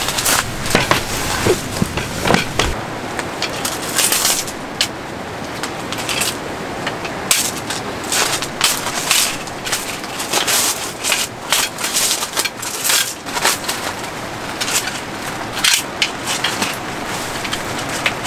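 Wooden folding camp table being set up: its hinged X-frame legs and slat top knock and clack irregularly as they are unfolded and laid in place, with footsteps crunching on gravel near the start.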